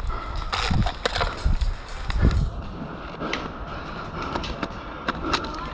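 Footsteps crunching through dry brush, with twigs and small branches snapping and cracking underfoot in an irregular series.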